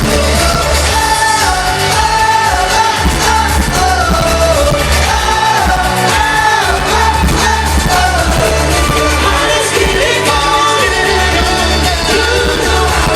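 Live amplified pop music: sung vocals over a band with a heavy, pulsing bass line.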